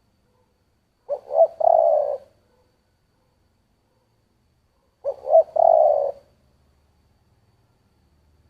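Spotted dove cooing in the low 'thổ' voice type: two call phrases about four seconds apart, each a couple of short notes running into a longer drawn-out coo.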